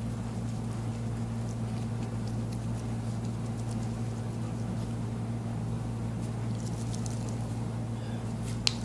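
Steady low hum, with two short sharp clicks near the end.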